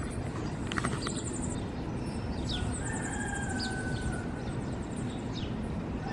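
Several birds calling: short high chirps, some falling in pitch, rapid high trills, and one held whistled note in the middle. A steady low rumble runs underneath.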